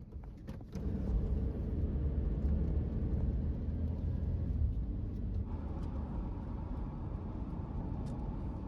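Steady low rumble of a motor vehicle, which comes up about a second in and holds.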